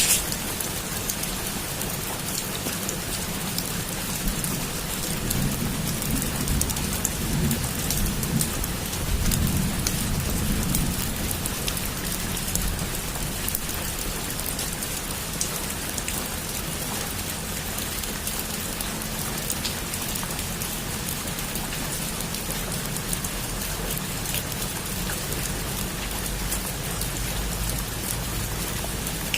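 Heavy rain falling on a roof: a steady, dense hiss of drops. Low rumbles of thunder swell up between about five and eleven seconds in.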